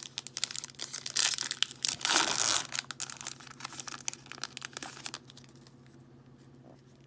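A Yu-Gi-Oh! booster pack's foil wrapper being torn open and crumpled by hand: a run of crinkling and tearing, loudest from about one to two and a half seconds in, that dies away after about five seconds.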